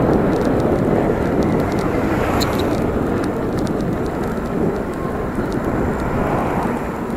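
Steady rush of wind and road noise on the microphone of a camera riding on a moving bicycle, with scattered light clicks and rattles.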